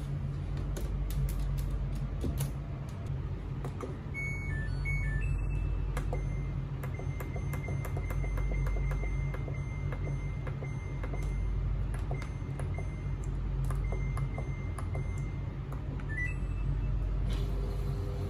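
Samsung top-load washing machine's control panel beeping as its buttons are pressed: a quick run of beeps at different pitches about four seconds in, and a short rising pair of beeps near the end. Light plastic clicks come and go over a steady low hum.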